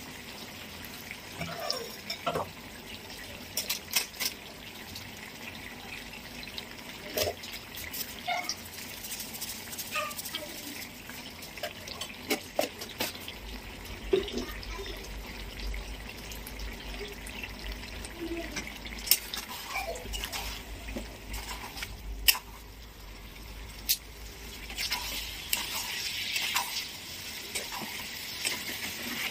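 Chicken and masala cooking in a steel kadai: a steady hiss, broken by scattered sharp clinks of a metal spoon against the pan.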